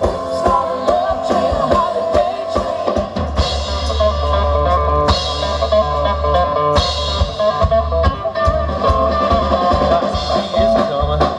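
Live rock band playing loud: a drum kit keeping a steady beat, with cymbal crashes three times in the middle, under guitars.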